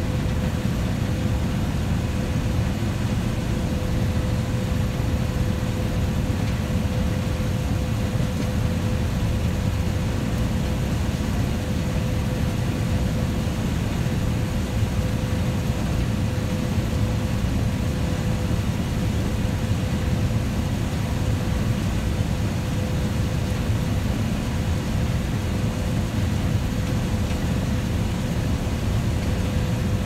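Combine harvester running steadily while its corn head gathers standing corn stalks: a constant low machine drone with a thin steady whine.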